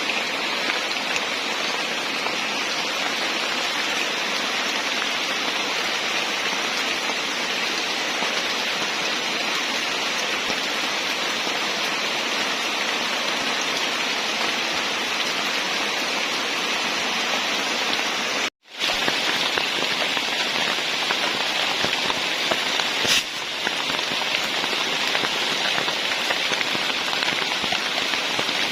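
Heavy tropical rain pouring steadily, an even hiss of water falling on leaves and surfaces. The sound drops out for a split second about two-thirds of the way through, and a single sharp tick stands out a few seconds later.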